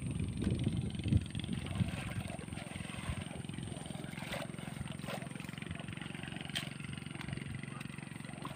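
A small engine running steadily as a low rumble, with a few light clicks partway through.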